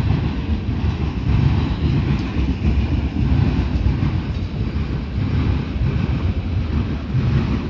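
Freight train cars rolling past close by: a steady, loud low rumble of wheels on rail.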